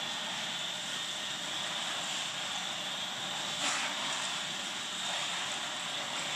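Steady hiss of background noise in the aquarium hall, with one brief scuff about three and a half seconds in.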